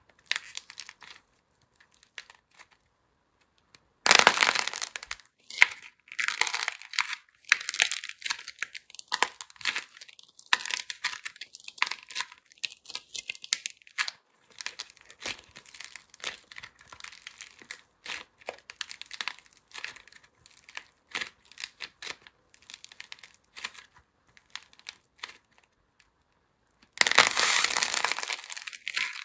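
Hands squeezing and pulling apart a lump of soap clay, which crackles and tears. There is a loud burst of crackling about four seconds in and another near the end, with lighter scattered crackles between.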